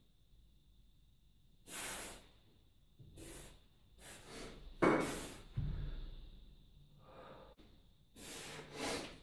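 A man breathing hard with the effort of lifting a pair of heavy kettlebells: a string of forceful exhalations, one about two seconds in, several close together around the middle and two more near the end. A dull low thud comes just after the middle.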